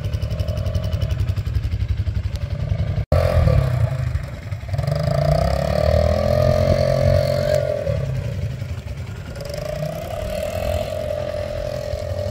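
ATV engine running while ridden over sand, its note rising and falling with the throttle. The sound drops out for an instant about three seconds in.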